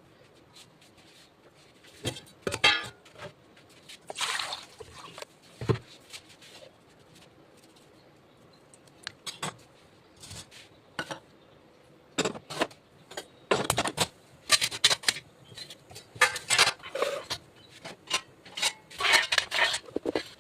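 Kitchen utensils clinking and scraping against pots and dishes in irregular bursts, busier in the second half, as food is prepared.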